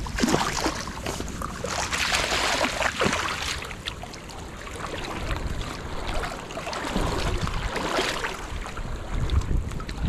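River water rushing and splashing, rising and falling in noisy swells.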